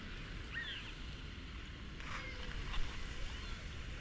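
Steady low rumble of water and wind on a waterproof GoPro, with a few short high chirps over it.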